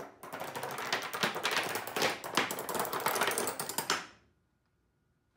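Padlocks toppling one after another like dominoes, a fast run of metal clicks and clatters on a tabletop lasting about four seconds and stopping suddenly.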